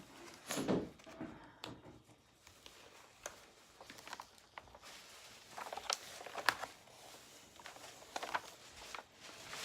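Paper being handled and peeled off a diamond painting canvas, rustling and crackling in a few short clusters as it keeps tearing instead of coming away cleanly.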